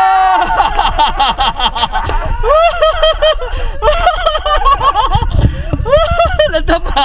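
People talking and laughing among themselves, speech mixed with snickers and chuckles.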